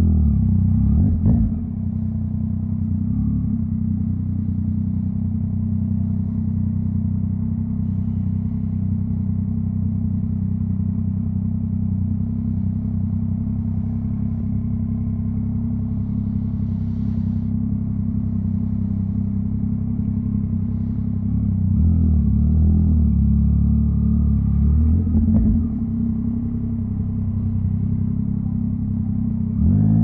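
Yamaha MT-09's inline-three engine and exhaust running at low revs with a steady burble, getting louder briefly just after the start and again for a few seconds near the end.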